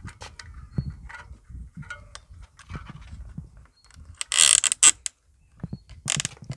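Plastic ratchet strap and clamps of a Peruzzo Pure Instinct tow-bar bike rack being fastened by hand: a run of clicks and rattles, with two louder scraping pulls of the strap about four and a half and six seconds in.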